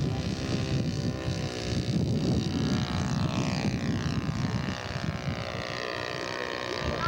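Radio-control model airplane engine running with its propeller, its pitch falling steadily over the last few seconds as the plane flies past.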